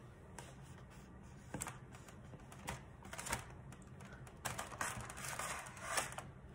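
A few light clicks and taps from kitchen things being handled on a countertop, with more of them near the end: an electric hand mixer being moved aside and a glass bowl of desiccated coconut being reached for.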